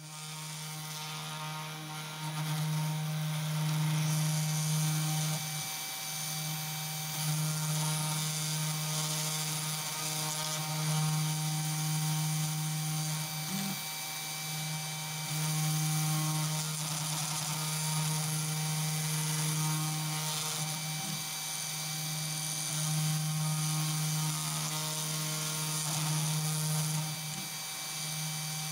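CNC2418 desktop router running, its small spindle spinning a V-bit engraver as it mills isolation tracks into copper-clad PCB. The steady motor hum with a high hiss swells and eases every few seconds as the cut goes on.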